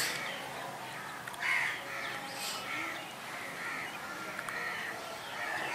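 Several short bird calls in the background, spaced across a few seconds over a quiet background.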